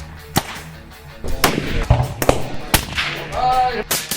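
Background music with several sharp percussive hits at uneven intervals and a short bending pitched sound near the end.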